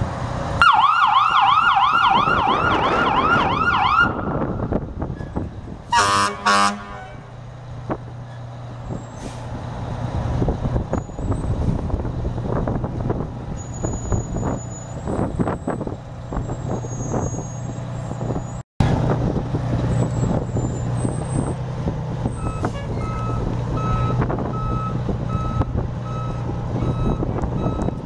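Fire truck siren sweeping rapidly up and down for a few seconds, then two short horn blasts, then the pumper's Detroit Diesel six-cylinder turbo diesel running as the truck drives out. In the last few seconds a reverse alarm beeps steadily while the truck backs up.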